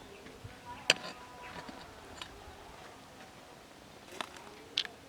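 A few sharp clicks or taps: a loud one about a second in and two weaker ones near the end.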